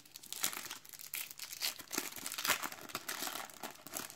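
A foil trading-card sachet crinkling as it is torn open and handled: a dense run of sharp crackles that stops just before the end.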